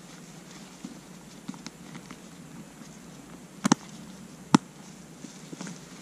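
Military surplus gear pouches being handled on a canvas ground cloth: soft rustling and light ticks, with two sharp clicks a little under a second apart just past the middle.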